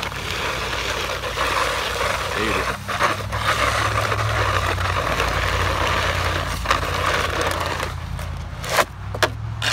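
Plastic snow pusher shovel scraping along a concrete sidewalk as it pushes snow, a continuous scrape with a couple of sharp knocks near the end.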